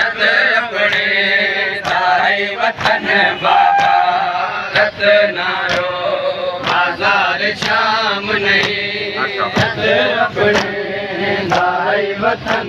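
Men chanting a noha refrain together, over a steady beat of chest-beating (matam) slaps at a little under two a second.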